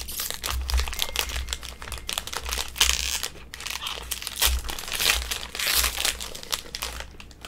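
Foil wrapper of an Upper Deck hockey card pack being opened and crumpled in the hands: a dense, continuous crinkling crackle that dies away at the end.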